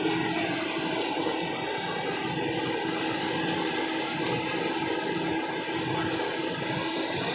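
Steady rushing, churning water noise with a low, even hum running under it.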